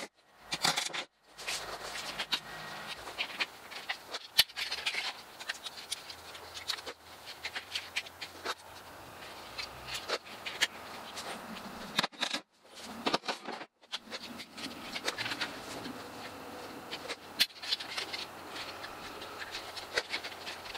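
Vinyl J-channel trim being cut, handled and fitted with hand tools: scattered sharp clicks and snaps over rustling and scraping, broken by brief silent gaps near the start and about two-thirds of the way through.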